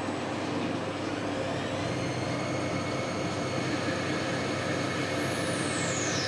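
CNC lathe turning a brass bar under coolant spray: steady machining and spindle noise with a thin whine that climbs a little about two seconds in. Near the end, a high whine falls steeply in pitch.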